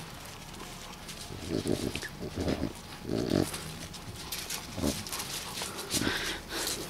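Chow Chow puppy snuffling with its nose down in the gravel: several short, noisy sniffs and snorts spread over a few seconds.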